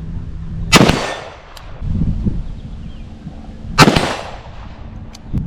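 Two shots from an AR-15 rifle in .223 Remington, about three seconds apart. Each is a sharp crack that rings out over most of a second.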